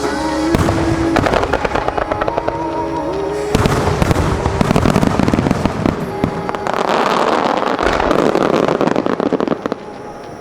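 Starmine fireworks barrage: rapid bursts followed by dense crackling, over the show's accompanying music. The loud firing stops suddenly near the end.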